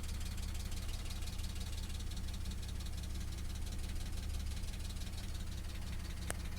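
BMW M50B25 2.5-litre straight-six engine running steadily with a fast ticking knock that the owner cannot place. A single sharp click comes near the end.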